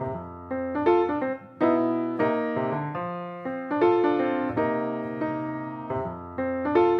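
Background music: electric piano playing sustained chords, each struck and left to fade.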